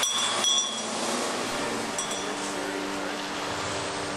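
Metallic clinking and rattling from a passing military cargo truck in the first half second, then steady tyre and traffic noise on a wet road.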